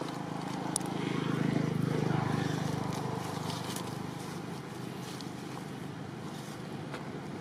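A motor vehicle's engine passing: a low hum that swells from about a second in and fades away after about three seconds.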